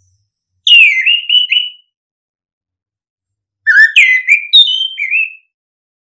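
A ground thrush (anis) singing two short phrases of clear, slurred whistles, the first about a second in and a longer second phrase of several sliding notes about three seconds later.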